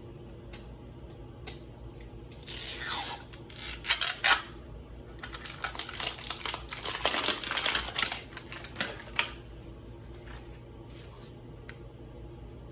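Toy packaging being opened by hand: two stretches of crackly rustling and tearing, the first about two seconds long and the second about four, with a few scattered clicks.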